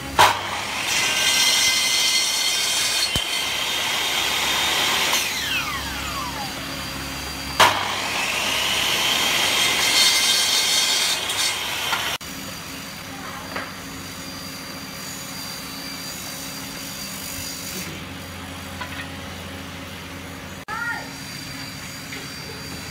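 Electric compound miter saw cutting wood twice. Each time the motor starts with a sudden jump in level and runs through the cut for about five seconds. After the first cut the blade winds down with a falling whine; the second cut stops suddenly about twelve seconds in.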